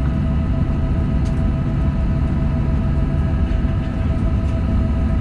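Cabin noise inside a Boeing 737-700 taxiing after landing: a steady low rumble with a constant engine hum of several fixed tones.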